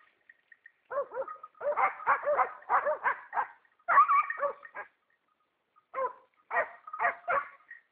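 A dog barking in quick runs of short, high yelping barks, several a second, with pauses of about a second between the runs.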